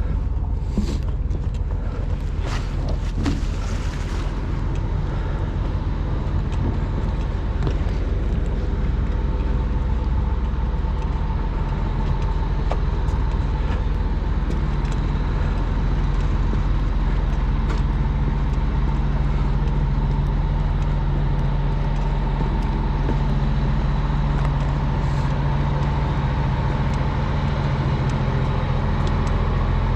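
An engine running steadily at constant speed, a low drone that does not change, with a few short clicks in the first few seconds.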